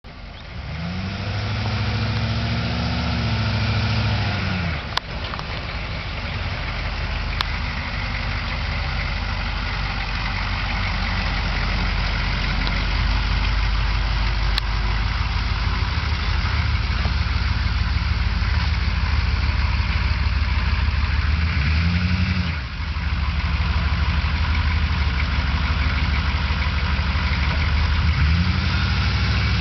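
HMMWV (Humvee) V8 diesel engine running under load as the truck crawls through a deep dirt ditch, growing louder as it nears. The revs rise and fall back three times.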